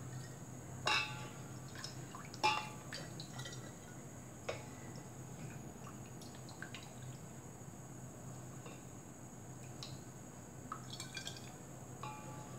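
Thick milk trickling and dripping through a funnel into a glass bottle. A few light clinks with a short ring come about one, two and a half and four and a half seconds in, with small ticks and clicks scattered throughout.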